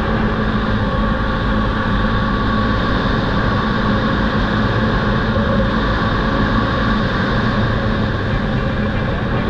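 Polaris Sportsman ATV engine running steadily under way, with tyre noise from the gravel track.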